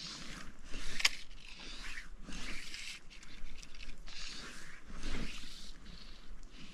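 Close, irregular rustling and scraping as loose fly line and clothing are handled, with one sharp click about a second in.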